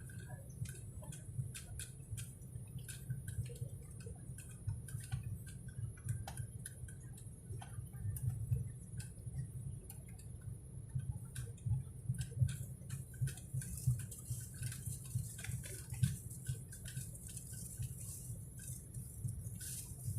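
Low steady rumble of airliner cabin noise, with irregular small ticks and clicks scattered throughout.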